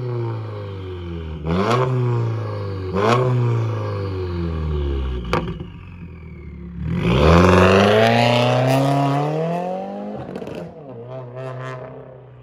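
2018 Subaru WRX's turbocharged flat-four, fitted with a catless J-pipe and AEM intake, being revved: two quick blips that fall away, a sharp click about five seconds in, then a longer rev held and falling over a few seconds, and two short blips before it settles toward idle.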